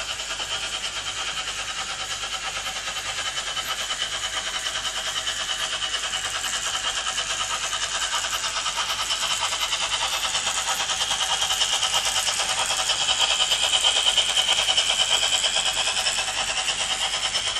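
Märklin H0 model freight train, drawn by a model steam locomotive, running along the layout's metal track: a steady rolling clatter and motor whine that swells as the train draws nearer, loudest about fourteen seconds in, then easing.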